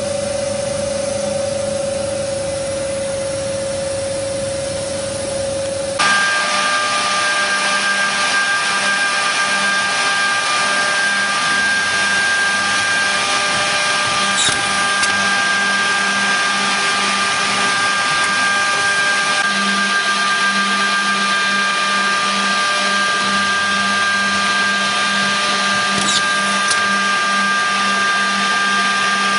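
Griggio GB 5 edge banding machine running with a steady motor hum. About six seconds in, the sound jumps abruptly to a louder, higher-pitched whine that then holds steady.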